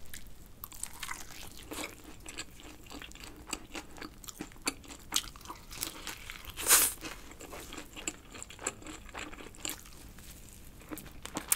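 Crunching and chewing of spicy glazed fried chicken: repeated crackly bites into the coated skin, with one louder crunch a little past halfway.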